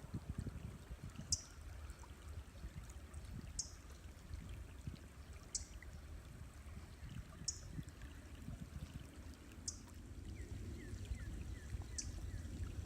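River water flowing steadily. A short, high, falling chirp repeats about every two seconds over it.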